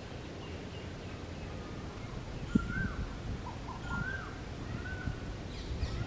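Several short bird calls, each rising then falling, through the second half, over a steady low outdoor rumble. A single sharp knock comes about two and a half seconds in.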